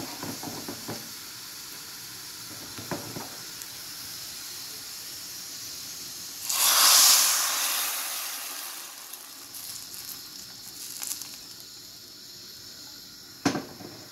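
Hot oil sizzling in a pan: a sudden loud hiss about six seconds in, as something hits the hot pan, fading away over the next several seconds. A few light clicks come before it, and a sharp knock near the end.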